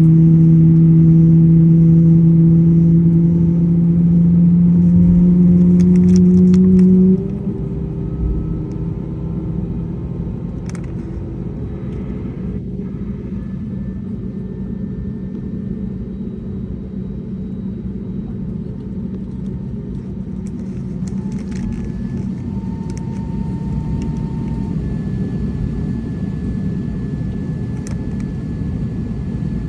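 Airbus A320neo jet engines and airframe: a loud steady hum that rises slightly in pitch, then drops off abruptly about seven seconds in, leaving a steady rumble.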